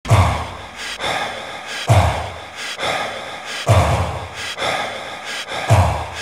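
Heavy, rhythmic breathing, an in-and-out breath roughly every two seconds, each cycle marked by a deep low thud.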